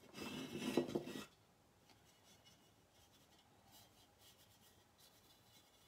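Stiff-bristled chip brush scrubbing acrylic paint onto a ceramic figure. There is a louder stretch of scrubbing in the first second or so, then faint, scattered brush strokes.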